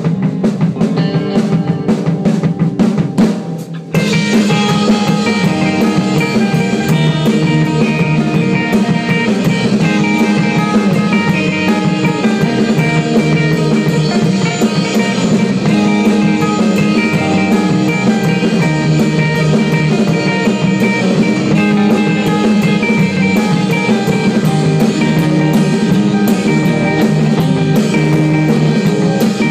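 Rock music played by a band with a drum kit and guitar. The music drops away briefly about four seconds in, then the full band comes back in.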